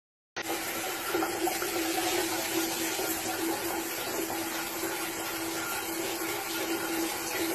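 Shower running steadily, water spraying down onto a tiled shower floor, with a faint steady hum beneath the spray.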